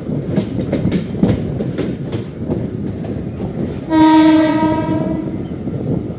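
Mumbai suburban local train running, heard from aboard: a steady rumble with the wheels clicking over rail joints. About four seconds in, a train horn sounds once for about a second.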